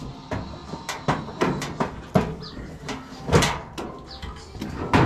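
Several irregular clunks and knocks from the sheet-metal panels of a Whirlpool dryer being handled and worked back onto their mounting pins, the loudest about three seconds in.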